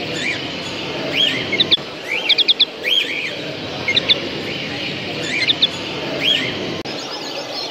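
Many caged show birds chirping and calling: short rising chirps and quick runs of three or four high notes, one or two groups a second, over a steady murmur of hall noise.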